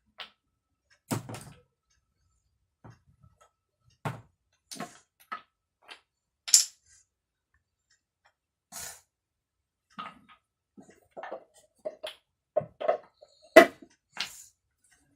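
Wooden toy blocks knocking and clacking as they are picked up and set down, in scattered single knocks, the loudest about six seconds in and near the end.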